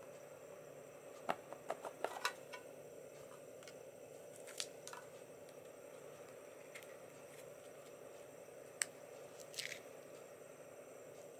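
Handling and opening a clear plastic model-railway case and its packaging: a quick cluster of sharp plastic clicks and taps a little over a second in, a few single clicks later, and a brief crinkle of a small plastic bag near the end, over a faint steady hum.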